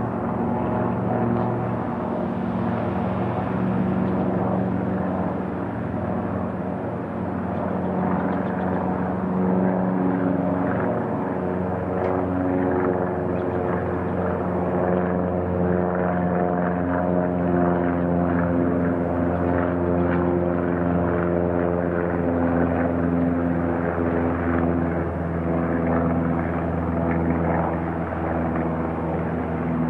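Light single-engine piston propeller plane climbing out after takeoff: a steady engine-and-propeller drone whose pitch slowly shifts.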